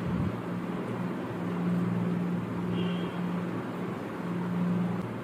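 A steady low motor hum over a background hiss, swelling and dipping in strength.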